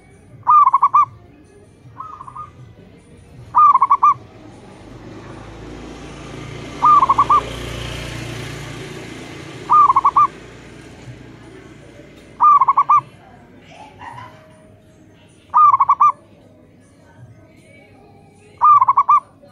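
Zebra doves cooing: a loud, short staccato call repeated about every three seconds, seven times, with fainter calls answering in between. A low rumble swells and fades in the middle.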